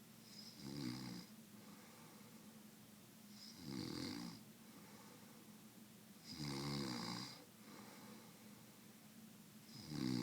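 A sleeping person snoring: four snores about three seconds apart, each lasting about a second.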